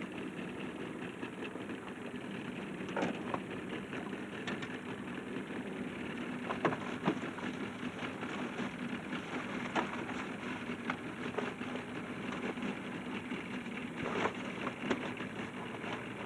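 Boat's outboard motor idling steadily, with scattered clicks and knocks over it.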